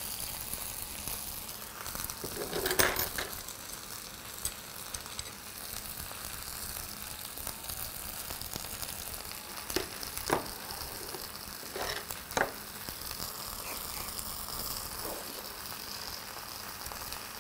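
Charcoal-grilled bone-in pork belly sizzling on a hot serving plate, a steady crackling hiss. A few short clicks and clatters come from tongs and kitchen scissors working the meat, the loudest about three seconds in, and more around ten and twelve seconds in.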